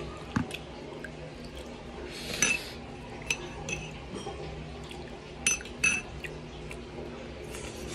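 Metal spoon clinking and scraping against a ceramic bowl while spooning vinegar dip: a string of light ringing clinks. The loudest come about two and a half seconds in and twice close together near six seconds.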